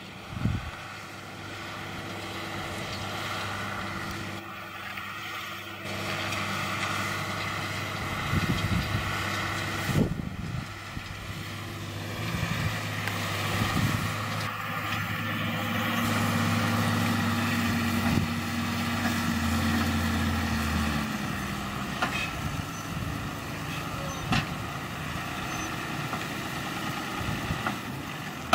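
John Deere 6150R tractor's six-cylinder diesel engine running steadily while pulling a plough, with a few short knocks.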